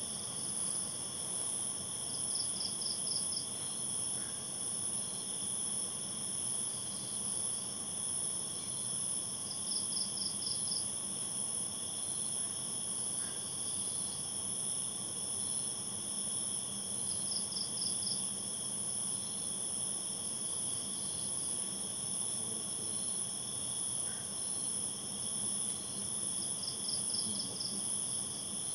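Night chorus of crickets and other insects: steady high-pitched shrilling at several pitches, with a short trill of quick pulses recurring every eight seconds or so.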